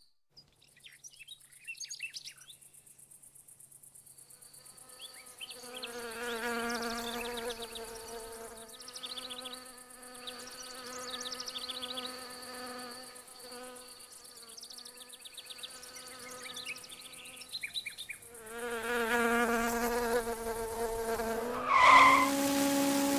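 Buzzing of flying insects' wings, a pitched drone that wavers up and down and comes and goes in long passes after a few quiet seconds, with a louder buzz near the end.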